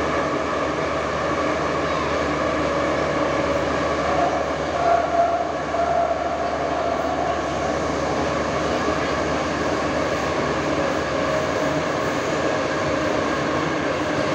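Soviet-built 81-71 metro train running, heard from inside the passenger car: a steady running noise with several steady tones over it. One of the tones swells briefly about five seconds in.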